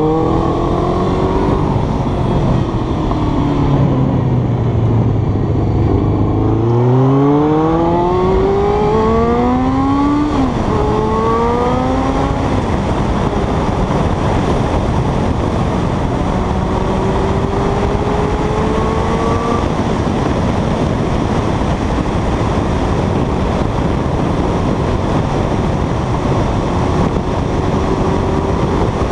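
Car engine under way with heavy road and wind noise. The engine note falls at first, climbs for a few seconds, drops at a gear change about ten seconds in, climbs again, then settles to a steadier cruise. It is a test drive of an engine whose carburettor float valves have just been replaced.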